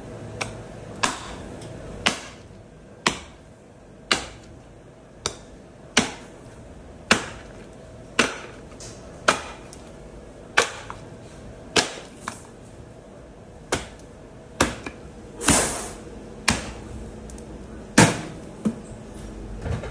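Meat cleaver chopping through a sheep's head and skull on a wooden butcher's block: about twenty sharp, heavy blows, roughly one a second.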